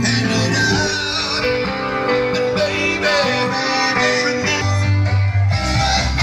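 Rock music led by electric guitar, with a bass line underneath, playing without a break.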